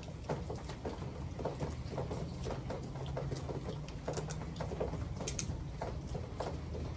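Eating sounds close to the microphone: chewing, lip smacks and irregular small clicks from people eating corn on the cob and other food, over a low steady hum.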